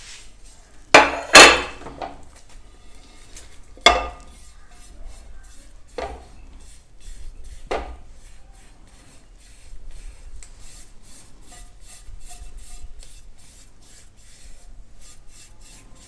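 Spoon or spatula scraping roasted cornflour out of a frying pan and knocking against the pan: several sharp knocks in the first eight seconds, then a run of quick, light scrapes.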